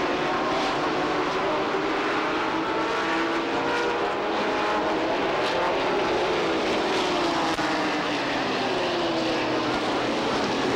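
A field of V8 stock cars racing past at speed, many engines running at once, their pitch sweeping up and then falling away as each car goes by.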